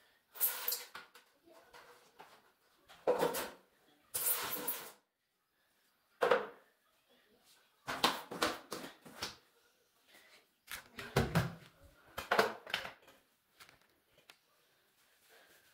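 Broom and floor squeegee working a tiled bathroom floor: a series of irregular swishing and scraping strokes, each under a second long, with short pauses between.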